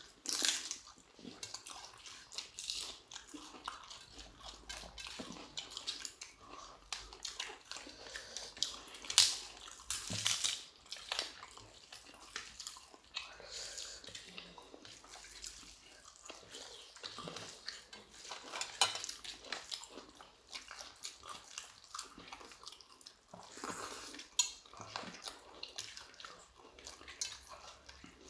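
People chewing and crunching crisp fried food such as pakoda and papad. There are irregular sharp crackles and small clicks throughout.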